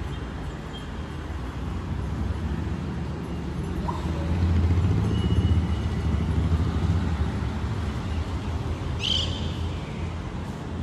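Low rumble of road traffic that swells for a few seconds mid-way, with one brief high squeak about nine seconds in.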